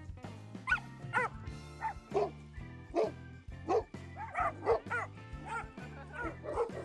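A dog barking repeatedly in short, high yips, about two a second, over background music with a steady bass line.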